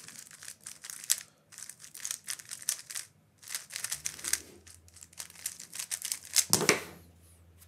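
DaYan GuHong Pro 54 mm magnetic speedcube being turned quickly in the hands: a rapid run of light plastic clicks and clacks as its layers snap round. The clicks pause briefly about three seconds in and stop near the end.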